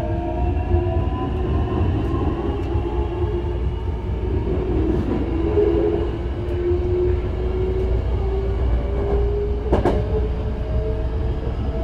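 Hankyu 9000-series train heard from inside the carriage: the whine of its Toshiba IGBT-VVVF inverter and traction motors rises slowly in pitch as the train gathers speed, over a steady rumble of wheels on rail. A single sharp knock comes near the end.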